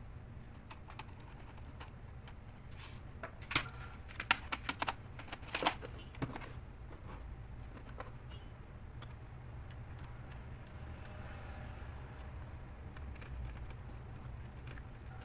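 Sharp clicks and taps of small hard parts being handled, about a dozen close together between three and six seconds in, with fainter ticks scattered around them, over a steady low hum.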